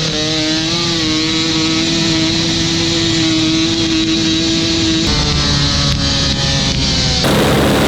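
KTM 250 two-stroke dirt bike engine revved up and held at high revs during a burnout, a steady high-pitched note. About five seconds in the note drops slightly, and near the end it gives way abruptly to a noisier engine sound.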